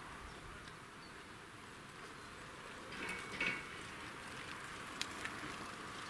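Quiet summer outdoor ambience with insects buzzing faintly. About halfway through there is a brief higher-pitched sound, then a couple of faint clicks.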